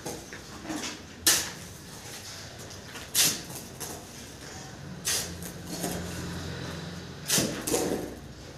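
A steel shovel scraping and chopping through wet sand-cement mortar on a concrete floor, a sharp stroke about every two seconds, with two close together near the end.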